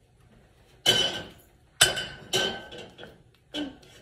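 Small glass salt shaker clinking against a hard surface: three sharp knocks with a brief ringing tone, about a second apart, and a softer one near the end.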